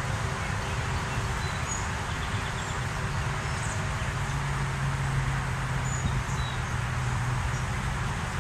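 Steady low outdoor rumble with faint, scattered bird chirps; a low steady hum joins about four seconds in and fades out near the end.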